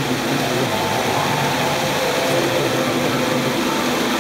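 Steady rushing of fountain water jets spraying up and splashing back into a basin.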